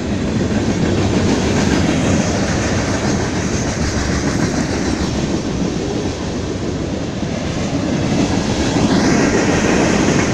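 BNSF freight train's cars rolling past at close range: a steady rumble with wheels clattering over the rail joints.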